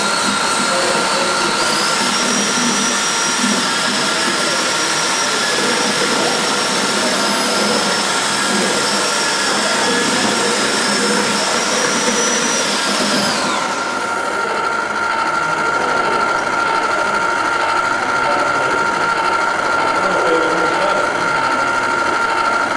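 A small electric motor runs with a high whine over a hiss. It speeds up about a second and a half in and cuts off about two-thirds of the way through, while a steady lower hum carries on.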